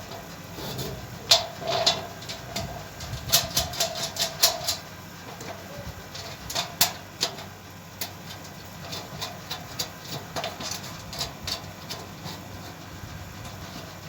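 Metal parts of a satellite dish and its mounting hardware knocking and clinking as they are handled and fitted together: clusters of sharp taps and clicks with a faint ringing, thinning out after about eight seconds.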